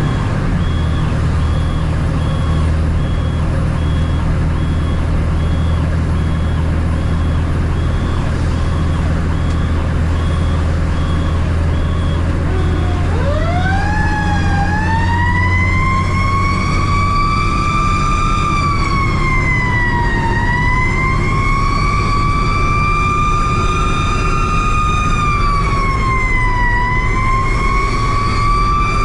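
Fire truck's engine droning steadily as it drives. About halfway through, its siren starts, winding up from a low growl to a high wail, then sagging and climbing back twice.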